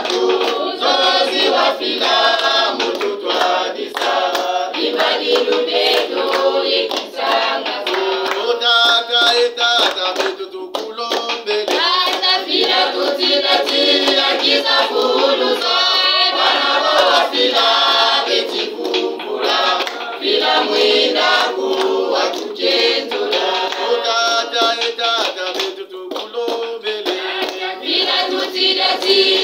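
A group of women's and men's voices singing a song together, with hands clapping along.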